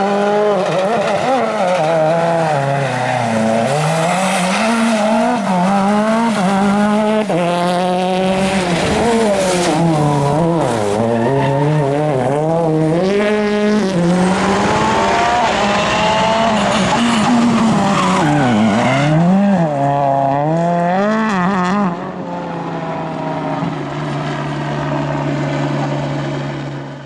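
Rally car engine at full effort, the revs climbing and dropping again and again through gear changes and lifts off the throttle. For the last five seconds or so the sound drops to a quieter, steady engine note.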